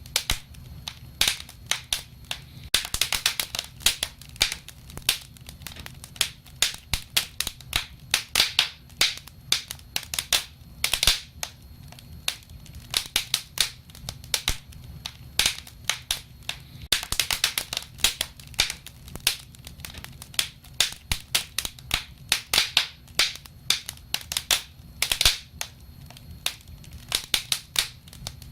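Wood fire crackling: irregular sharp pops and snaps, often several in quick clusters, over a steady low rumble.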